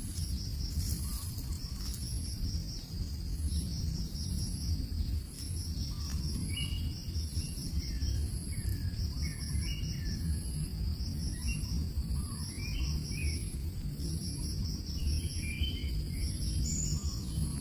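Insects trilling in a steady chorus, pulsing regularly about once a second, with short bird chirps coming and going from about six seconds in, over a low rumble.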